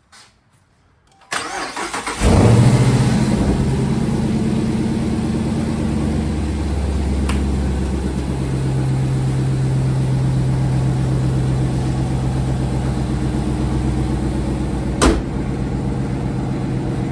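Dodge Charger R/T's 5.7-litre HEMI V8 cranked and started about a second in, flaring briefly as it caught and then settling into a steady idle. No rattle is heard at idle now that the exhaust springs are replaced. A single sharp click comes near the end.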